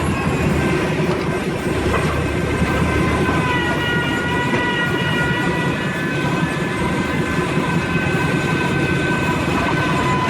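Heavy machinery running steadily: a dense mechanical rumble with several high, steady whining tones over it that grow stronger about three and a half seconds in.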